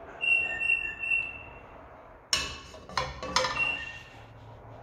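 Metal baking pan being handled: three sharp clanks, about two and a half to three and a half seconds in, each leaving the pan ringing with a high tone. A fainter ringing tone comes earlier.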